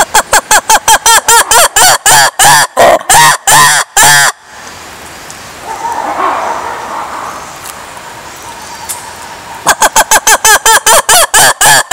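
A rapid series of loud, pitched animal calls, about four a second, in two bouts with a pause of several seconds between them.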